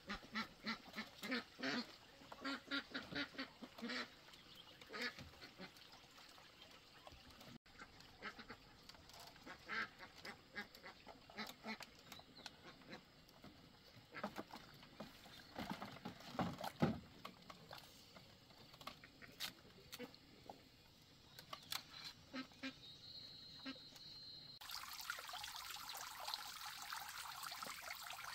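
Ducks quacking, a quick run of calls at first and then on and off, with scattered light knocks. About three-quarters of the way through, a steady trickle of water takes over.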